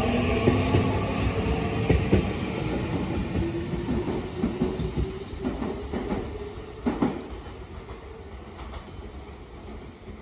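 Tokyu 7000 series electric train pulling away: its Toshiba IGBT VVVF inverter whine slowly rises in pitch as it accelerates, with the wheels clacking over rail joints. The sound fades as the train recedes, dying away over the last few seconds.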